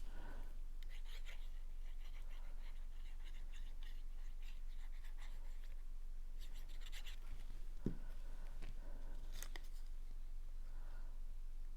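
Cardstock pieces being handled, with light scratching and rustling that comes in small clusters, and a single soft knock about eight seconds in, over a steady low hum.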